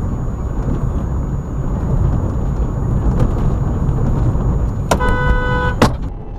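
Steady road and engine rumble inside a moving car, with a car horn sounding once, a steady tone lasting about a second, near the end.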